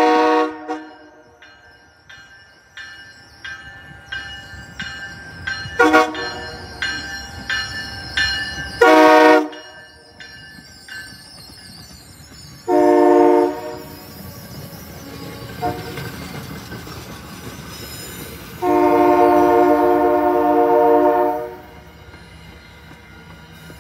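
MBTA commuter rail diesel train sounding its horn as it comes through: short blasts about 6 and 9 seconds in, another about 13 seconds in, and a long blast of nearly three seconds from about 19 seconds. Between the early blasts there is a steady, evenly spaced ringing like the locomotive bell, and the passing coaches' wheels rumble on the rails.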